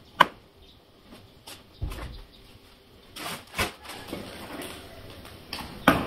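Clothes being handled and shaken out, fabric rustling and flapping, with a few sharp knocks and taps, the loudest just after the start and near the end.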